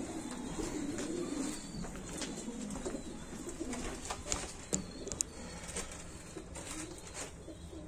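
Domestic pigeons cooing in a loft, low and wavering. A few sharp clicks come about halfway through.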